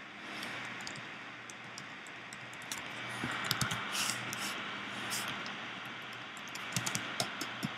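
Scattered faint clicks and taps from working a computer's input devices, over a steady hiss and a low hum; a quick run of clicks comes near the end.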